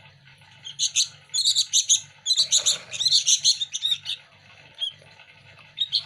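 Fledgling sooty-headed bulbuls giving fast strings of high begging chirps, starting about a second in and running for about three seconds, with a short call later on and another near the end.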